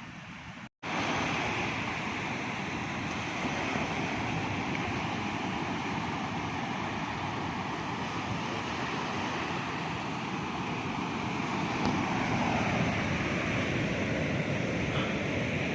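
Heavy ocean surf breaking on a beach in a steady rush, with wind on the microphone, swelling a little louder near the end. It starts after a brief cut to silence just under a second in.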